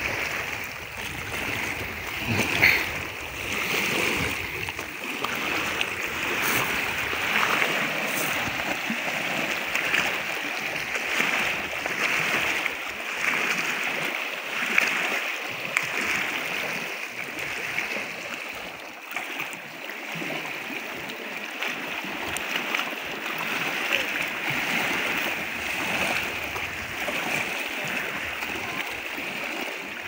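Small wind-driven waves on a lake lapping and splashing against a pebbly, rocky shore: a continuous wash of water that swells and eases, with a few brief louder splashes.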